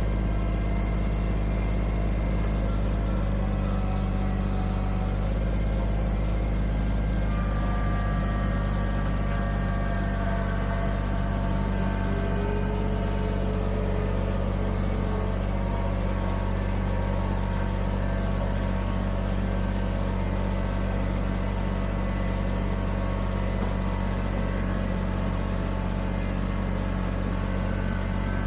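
Kubota BX25D sub-compact tractor's three-cylinder diesel engine running steadily at about 2000 rpm in low gear while the tractor pushes snow with a loader-mounted plow.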